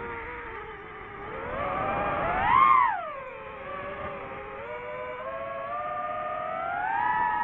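DJI FPV drone's motors whining, the pitch rising and falling with the throttle. It swoops up to its loudest and highest about two and a half seconds in, then drops and climbs again near the end.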